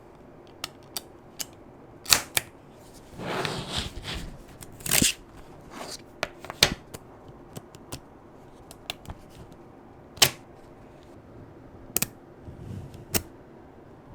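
Small magnetic balls snapping and clicking together as they are handled: a dozen or so sharp, separate clicks spread irregularly, with a stretch of rubbing and rustling about three seconds in.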